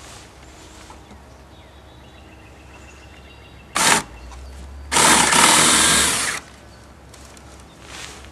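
Power drill with a 1/2-inch bit boring up at an angle into a wooden deck handrail: a short burst about four seconds in, then a longer run of about a second and a half.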